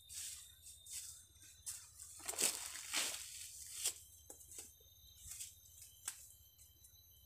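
Footsteps scuffing and rustling through sawdust and dry leaves, loudest around the middle, with a couple of sharp clicks later on.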